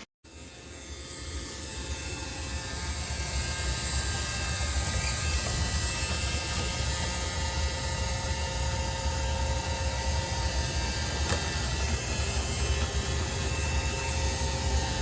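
Steady machine running noise with a deep rumble. It builds up over the first few seconds, then holds steady.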